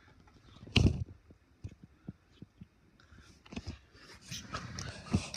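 Handling noise from a phone held close to the microphone: a loud thump about a second in, then scattered clicks and a stretch of rustling.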